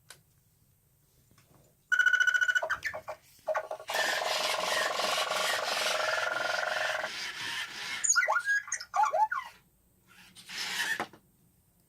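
Red Roboquad toy robot making its electronic sound effects: a pulsing beep about two seconds in, then a loud buzzing electronic sound for about three seconds, followed by quick gliding robotic chirps and a short hiss.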